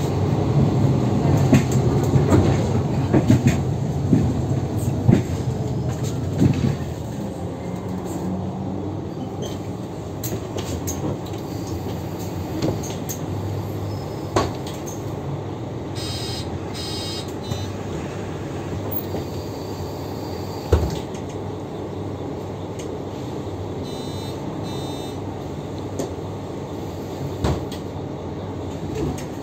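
Inside a 2008 Mercedes-Benz O530G Citaro articulated bus: the diesel engine and ZF Ecomat automatic gearbox pull hard for the first six seconds or so, then run quieter and steady as the bus rolls on. There are occasional knocks from the body, and a short high beeping comes twice, about halfway through and again later.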